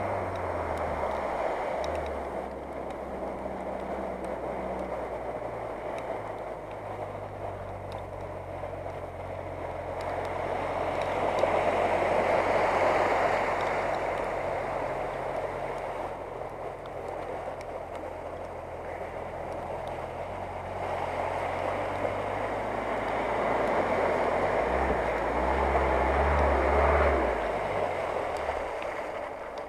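Off-road 4x4 engine running under load while wading through shallow water, with the rushing splash of water thrown up around the truck. The splashing swells about ten seconds in and again near the end, where the engine's low note grows stronger as the truck climbs up onto the bank.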